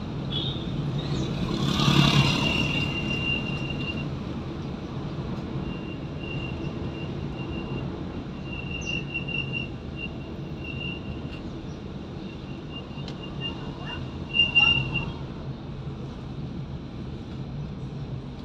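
Car driving on a rural road, heard from inside the cabin: a steady low engine and tyre drone. About two seconds in it swells as a motorbike passes close alongside. A thin high whine comes and goes through the middle, with a brief louder burst near the end.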